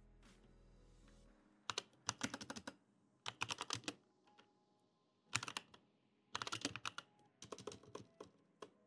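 Typing on a computer keyboard: several quick runs of keystrokes separated by short pauses, starting a couple of seconds in.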